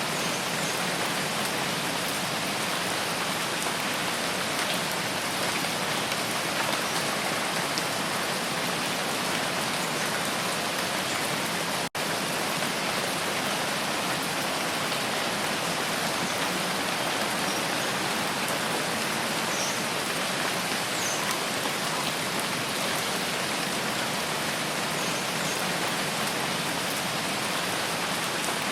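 Steady rain falling, a dense even hiss of drops that cuts out for an instant about twelve seconds in.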